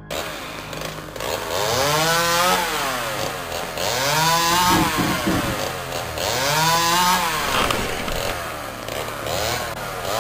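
Chainsaw revving up and down about four times, its engine pitch climbing and falling with each rev.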